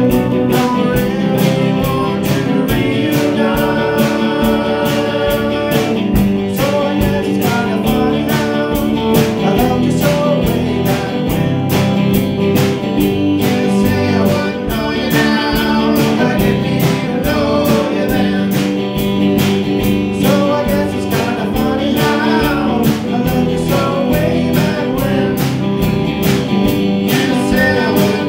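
Live rock band playing: electric guitars, bass guitar and a drum kit keeping a steady beat, with a man singing lead over them.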